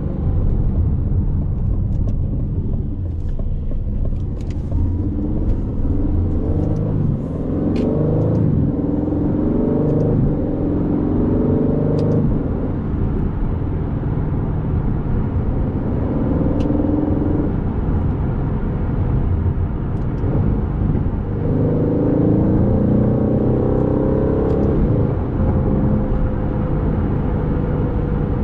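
Aston Martin Vantage's 4.0-litre twin-turbo V8 running under way, its revs climbing and falling back several times as it accelerates and eases off.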